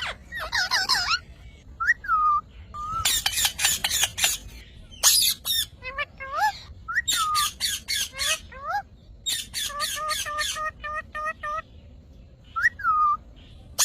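Parrot calling: harsh, screechy squawks in quick runs, mixed with short whistled notes that glide up and down. About two thirds of the way in comes a fast run of repeated calls, about five a second.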